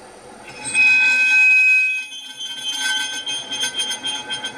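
Twist drill bit cutting into duplex stainless steel at very slow speed under constant feed pressure, squealing with several high tones. The squeal starts about half a second in and is loudest for the next second and a half, then turns into a rapid pulsing squeal, several pulses a second.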